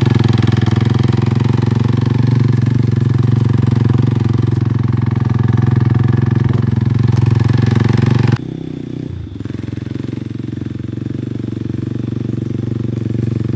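Motorcycle engine running steadily while riding, close and loud. A little over eight seconds in the sound drops suddenly to a quieter, steady motorcycle engine further off.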